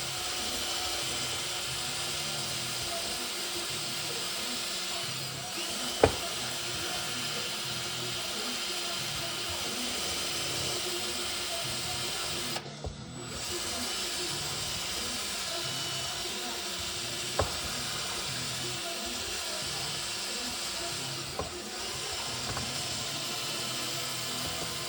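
A handheld power tool running steadily under work. It stops for about a second near the middle, and a few sharp clicks fall at scattered moments.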